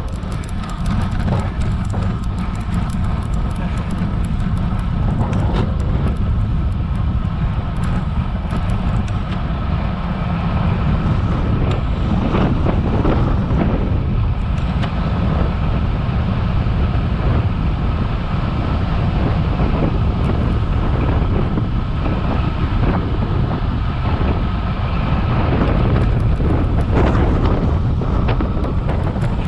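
Wind buffeting a GoPro action camera's microphone while a road bike rides uphill, a steady low rumble with road noise under it. Light ticking is heard through roughly the first nine seconds.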